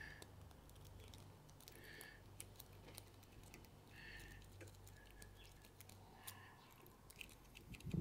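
Faint, irregular clicking and scraping of pointed steel Swiss Army knife tweezers raking the pin tumblers of a small brass padlock, over a low steady hum.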